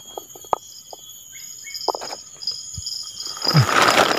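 Soft clicks and taps of hands working bait onto a fishing hook. A thin, high, steady tone sets in behind them. About three and a half seconds in, a loud rustle and scuffle as the person shifts, brushing clothing and plastic bait bags.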